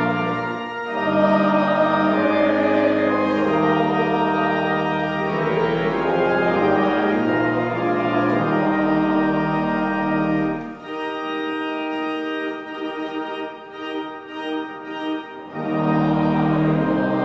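Church organ playing held chords that change in steps, dropping to a softer, thinner passage for about five seconds past the middle before returning at full strength near the end.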